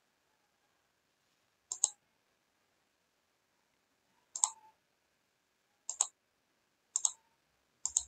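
Computer mouse button clicked five times, spaced about a second or more apart, each click a quick double tick of press and release.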